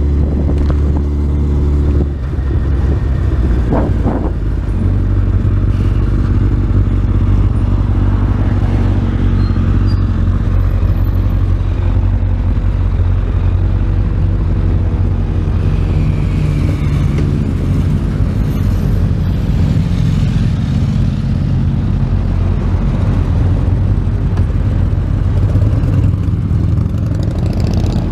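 Motorcycle engine running while the bike is ridden. Its pitch shifts a few seconds in, then it runs fairly steadily.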